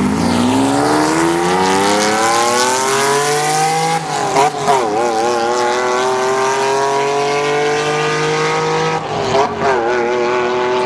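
Lamborghini Diablo SV's V12 accelerating hard as the car pulls away down a drag strip, its note climbing steadily through the revs, with two upshifts about four and nine seconds in.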